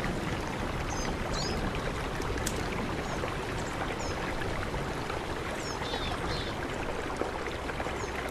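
Mountain river rushing steadily, a continuous even wash of flowing water. A few brief high chirps sound over it, twice near the start and several more around the middle.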